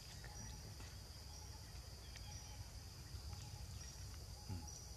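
Insects chirring steadily in a high, even drone, over a low background rumble.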